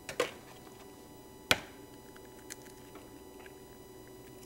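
An egg cracked sharply against the rim of a bowl, with a couple of lighter taps just before it and a few faint clicks of eggshell afterwards as the yolk is separated between the shell halves.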